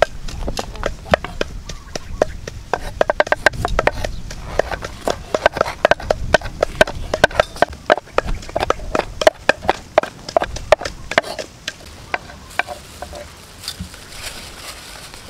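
A kitchen knife chopping rapidly on a bamboo cutting board, mincing garlic: a quick run of sharp taps, several a second, that stops about twelve seconds in. After that come softer, quieter sounds of raw chicken gizzards and chopped chilli being mixed by hand in a steel bowl.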